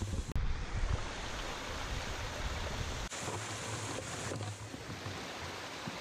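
Steady rush of running water from a waterfall splashing into a pool and a shallow rocky stream. Wind rumbles on the microphone for the first three seconds or so, then drops away.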